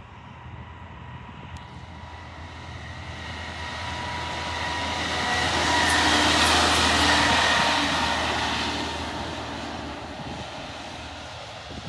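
CSX rail maintenance-of-way machine rolling past on the track: engine hum and rail noise build to a peak about six seconds in, then fade as it moves away.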